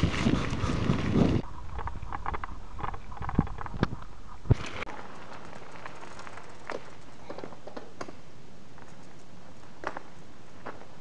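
Wind and tyre rumble from a mountain bike rolling down a gravel fire road, cut off abruptly about a second in. A run of small crunches and clicks follows, with one sharp knock, then a steady low hiss with a few faint ticks on the gravel as the bike passes.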